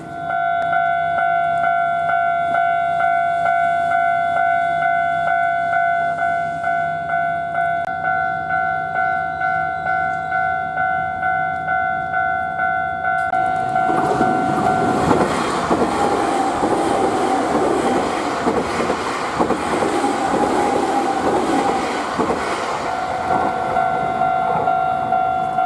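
Japanese level-crossing warning bell starts ringing, a steady repeating electronic ding. About fourteen seconds in, a Nankai 9000 series electric train passes over the crossing with a loud rush of wheel and rail noise lasting about eight seconds, and the bell keeps ringing after it has gone.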